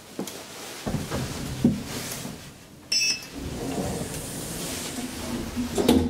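Elevator doors sliding shut, with a rumble that ends in a loud thump as they meet near the end. About halfway through, a short electronic beep sounds, and a few knocks come before it.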